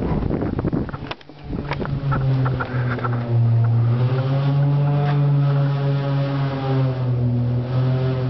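Wind rushing on the microphone and a few knocks, then from about two seconds in a wind turbine's generator hums steadily, its pitch drifting slightly up and down.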